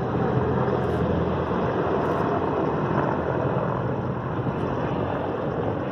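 Sikorsky CH-53E Super Stallion heavy-lift helicopter flying past on a low pass, its rotor and three turboshaft engines making a steady drone that fades slightly as it moves away.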